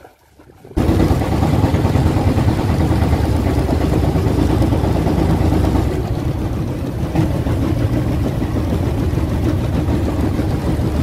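Fishing boat's engine running steadily with the boat under way, water rushing along the hull beneath it; it comes in abruptly about a second in.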